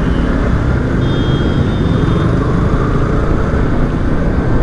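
Yamaha R15 V3 single-cylinder motorcycle picking up speed through city traffic, heard from the rider's own microphone as steady engine and wind noise.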